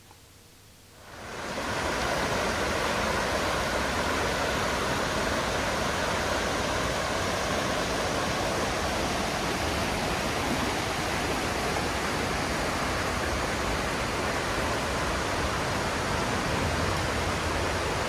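Shallow mountain stream rushing steadily over rocks, fading in about a second in.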